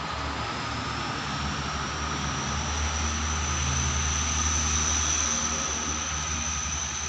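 Diesel train approaching in the distance: a low, steady engine rumble that swells a little toward the middle, with a thin high steady tone above it.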